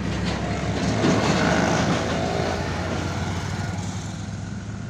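Engine running steadily with a low, even hum. A broader noise swells over it about a second in and fades over the next few seconds.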